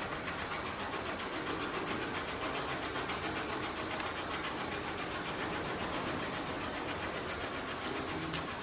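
Steady, even background noise with a faint low mechanical hum.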